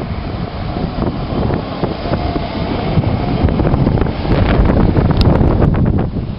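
Strong wind buffeting the microphone: a heavy, uneven rumble with scattered crackles and pops.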